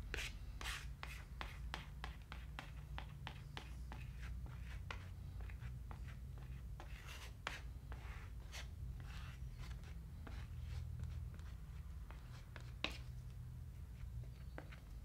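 Wood glue being spread over a plywood board with a small spreader: a quick run of short scraping and rubbing strokes, with one sharper tap near the end. A steady low hum runs underneath.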